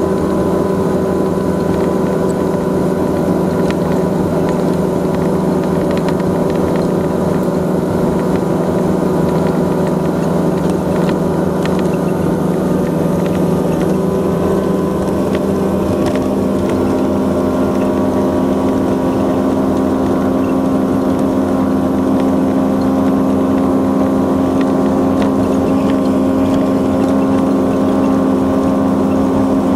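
Bass Cat Bay Cat bay boat's outboard motor running under way, a steady drone over wind and water noise. About halfway through, the engine pitch steps up a little and it gets slightly louder.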